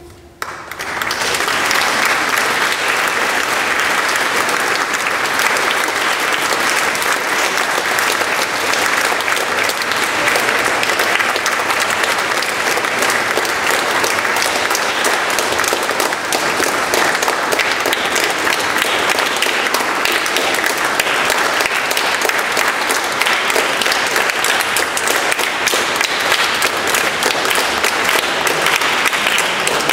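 Large audience applauding: dense, sustained clapping that starts about half a second in and continues without a break.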